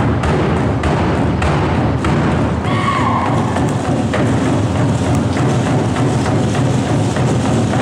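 Tongan drum ensemble playing a fast, dense drumbeat on large rope-laced drums struck with sticks, the hits running together in a steady loud roll.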